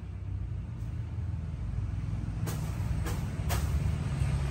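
Low steady hum of a running karaoke power amplifier, growing slowly louder, with three light clicks about half a second apart a little past the middle.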